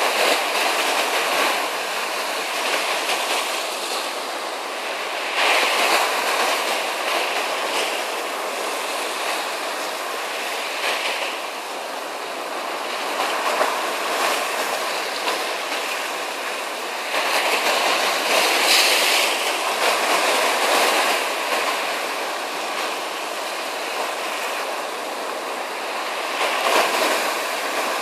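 Ocean surf: a continuous rush of waves breaking, swelling louder every few seconds as sets come in and then easing off.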